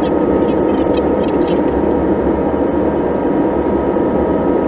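Boeing 737-800 cabin noise in the climb after takeoff, heard from a window seat over the wing: its CFM56 turbofan engines running at climb power under a steady rush of airflow, with a steady two-note whine above the roar.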